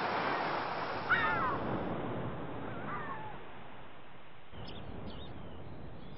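Ocean surf washing steadily. A bird gives a loud harsh call about a second in and a fainter one around three seconds, with short high chirps near the end.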